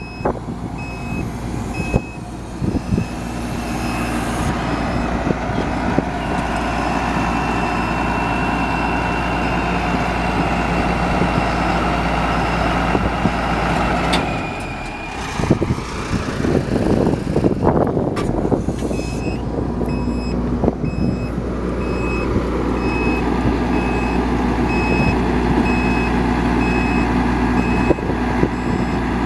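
Bucket truck engine and hydraulics running steadily while the outriggers are worked, with a repeating warning beep at the start that stops after a couple of seconds and returns about two-thirds of the way in.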